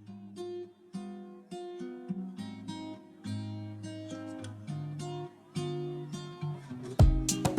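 Background music: plucked acoustic guitar, with a loud drum beat coming in near the end.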